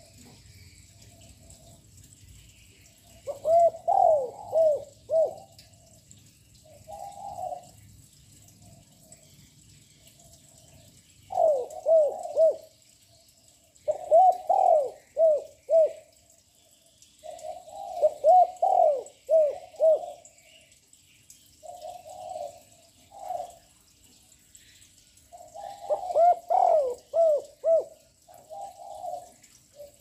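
A young spotted dove calling loudly: about eight phrases of quick coos, each made of a few arcing notes, with short pauses between phrases. This is the loud cooing that bird keepers use to stir up other doves.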